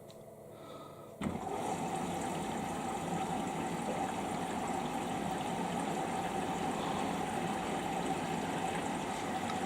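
Samsung EcoBubble washing machine taking in water: about a second in the inlet valve opens and water rushes steadily into the drum.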